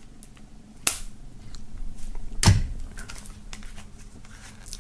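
Knife blade cutting the plastic shrink-wrap along the edge of a CD case, with small scratching ticks. There is a sharp click about a second in and a louder knock about halfway through.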